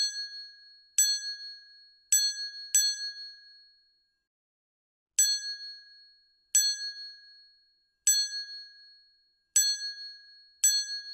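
A bright bell-like ding sound effect, struck about nine times at uneven intervals, each one ringing briefly and fading. It marks a new comment box popping up on screen, as in a notification chime.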